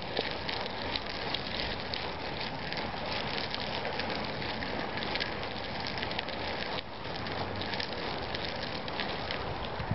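Unicycle tyre rolling over gritty asphalt: a steady crackling hiss, with a brief break about seven seconds in.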